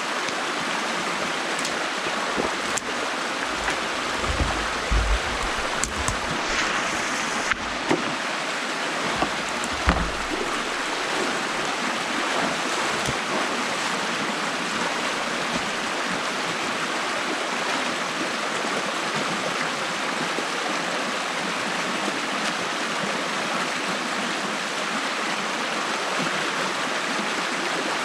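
Stream water rushing steadily through a beaver dam that is being opened up. A few low thuds and knocks come in between about four and ten seconds in.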